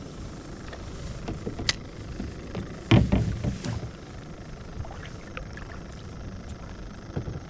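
Knocks and clicks of a kayak paddle and fishing rod being handled against the plastic kayak, with one loud thump about three seconds in, over a steady low rumble.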